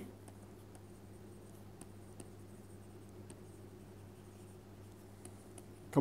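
Faint scratches and taps of a stylus writing on a tablet screen, over a steady low hum.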